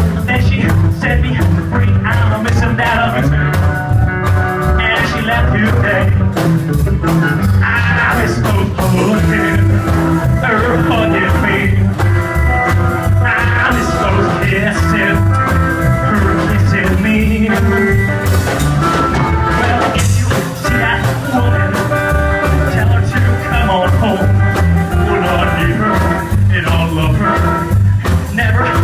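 A live rockabilly band playing a fast number: acoustic guitar, upright double bass and drum kit.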